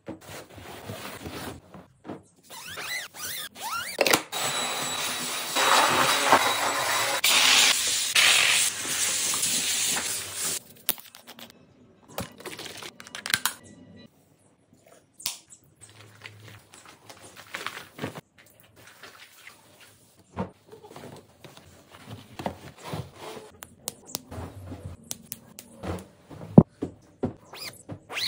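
Household cleaning sounds: bedding being handled and rustled, with scattered clicks and taps. A loud steady hiss lasts about six seconds near the start.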